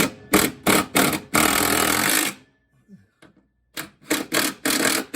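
Electric impact wrench driving in a shock mounting bolt in short trigger bursts, with one longer run of about a second, a pause, then more short bursts.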